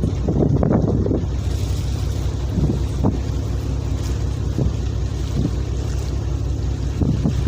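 Steady low drone of a ship's engine running, with wind on the microphone and a few brief louder surges.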